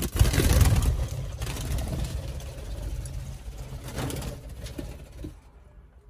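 Budgerigars' wings flapping as birds take off and flutter close past, a rushing noise that starts suddenly, is loudest in the first second, swells again about four seconds in and dies away just before the end.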